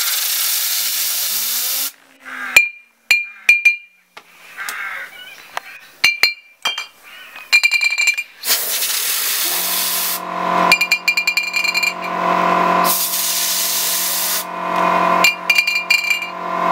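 Compressed-air blow gun hissing in three loud blasts as it drives a fidget spinner against glass bottles, with sharp clicks and short glassy clinks between the blasts. A steady machine hum comes in about ten seconds in and keeps going.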